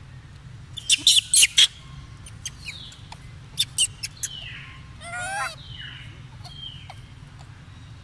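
High-pitched animal squeaks and chirps: a cluster of sharp ones about a second in, more around three and a half to four seconds, then a short wavering squeal about five seconds in. A low steady hum runs underneath.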